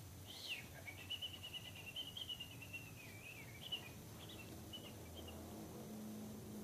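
Tiny Maltipoo puppy whining: a short high squeak, then a thin, high, wavering whine about a second in that lasts about two seconds, followed by a few shorter whimpers.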